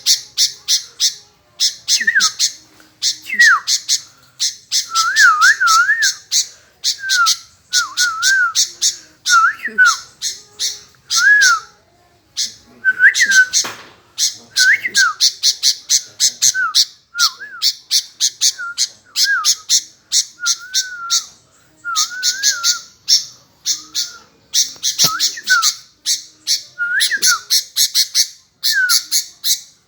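Sooty-headed bulbul (kutilang) calling over and over: quick harsh chattering phrases mixed with short rising-and-falling whistled notes, with hardly a break except a brief pause about twelve seconds in.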